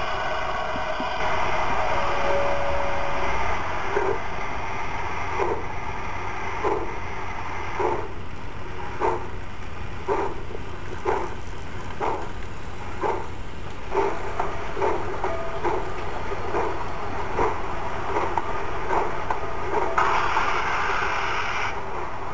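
Model GWR steam tank locomotive pulling its train away: a steady beat of chuffs that quickens as it gets under way, after a short steady tone about two seconds in.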